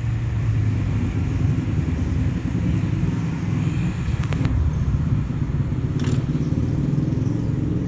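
A steady low rumble, with a couple of light clicks around the middle.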